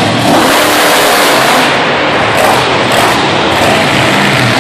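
Monster truck engine running loud, revving up and down as the truck drives across the dirt floor of an indoor arena.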